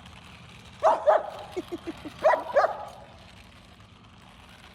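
High-pitched dog barking: two short double barks, about a second in and again about two seconds later, with a few soft yips between them and another bark starting at the very end.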